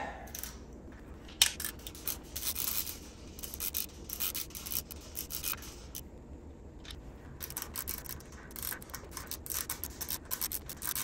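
Hand wrench loosening engine case bolts: short bursts of rapid clicking, as a ratchet is swung back and forth, with a single knock about a second in.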